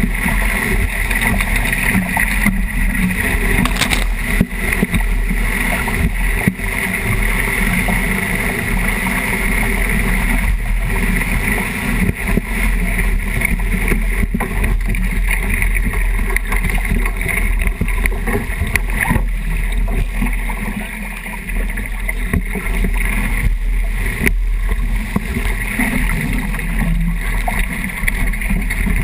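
Strong wind buffeting the microphone mixed with water rushing and spraying along the hull of a 29erXX skiff sailing fast in about 30 knots of wind, with a few sharp knocks.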